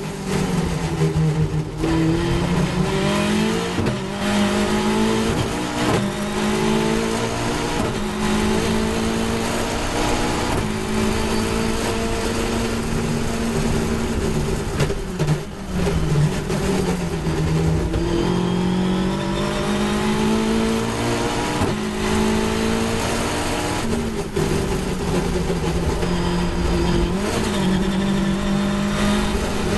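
Caterham 420R's 2.0-litre Ford Duratec four-cylinder engine at full race power heard from the cockpit. It climbs in pitch and drops back at each upshift every couple of seconds, and falls away with downshifts under braking about halfway through and again later.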